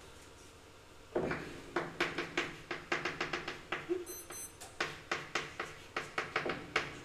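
A run of sharp clicks or taps, roughly two to three a second, starting about a second in. Midway comes a short high electronic beep, sounding twice in quick succession.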